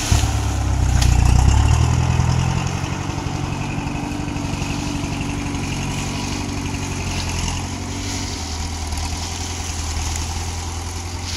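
Engine of an old John Deere sugarcane grab loader running. It is louder for about the first two seconds, as the grab releases its load, then settles to a steady run.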